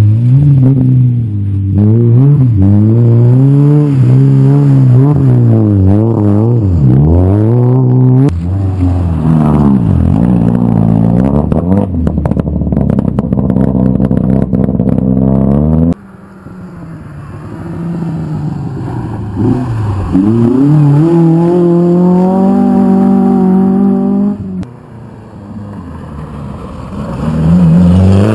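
Rally cars' engines, revving hard through a corner pass after pass, pitch climbing and dropping with gear changes and lifts off the throttle.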